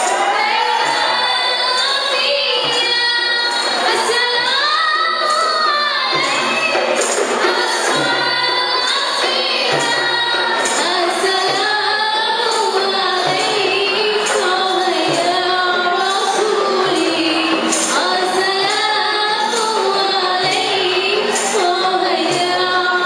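Qasidah rebana music: a group of women singing a melody together, accompanied by rebana frame drums beaten in a steady rhythm.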